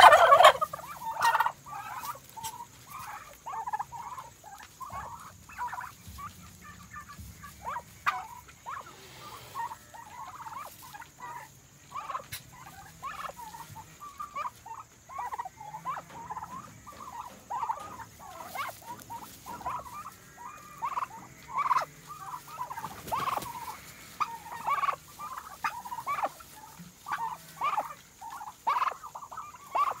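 Bronze Orlop turkeys: the tail of a tom's gobble right at the start, then hens chirping in short, high calls, several a second, throughout.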